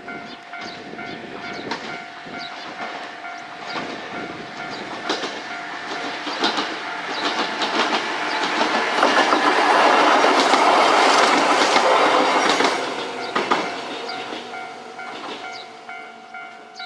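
A 103 series 3500 electric train passes over a level crossing. It grows louder to a peak about ten seconds in, with wheels clacking over the rail joints, then fades away. A steady ringing tone, fitting the crossing's warning bell, sounds throughout.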